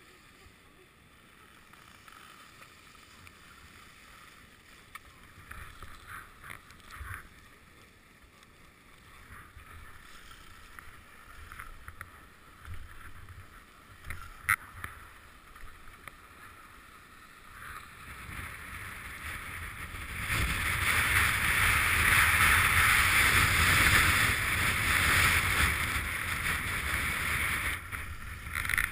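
Skis running and scraping over hard-packed groomed snow, a hiss that grows much louder as the skier picks up speed, loudest from about two-thirds of the way in. One sharp click near the middle.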